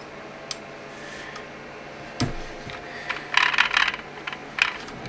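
Hands handling a plastic infrared beam sensor on its wooden mount: a few light clicks, a knock a little over two seconds in, and a short rattle of plastic clicks and scraping around three and a half seconds.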